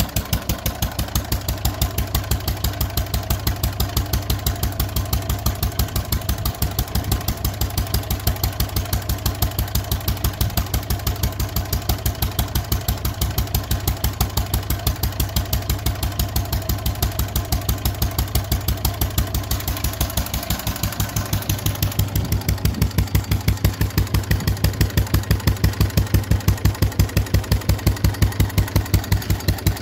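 EVR 6 single-cylinder petrol stationary engine running steadily, firing in an even exhaust beat. The beat gets louder about two-thirds of the way through.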